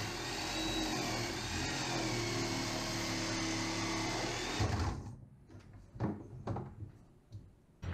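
Old electric sabre saw (jigsaw) running, its blade cutting a round hole through a varnished wooden boat thwart. The saw stops about five seconds in, followed by a few light knocks.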